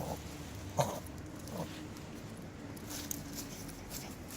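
Puppy giving three short vocal sounds in the first two seconds, the middle one loudest, followed by light scratchy clicks as it rolls in the dirt.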